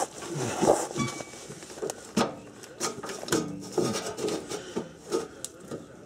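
Irregular clicks, knocks and rubbing from hands and a tool handling a rusty car parking brake cable at its underbody bracket.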